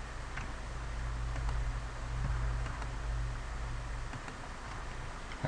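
A low steady hum that cuts off about four seconds in, with a few faint computer mouse clicks.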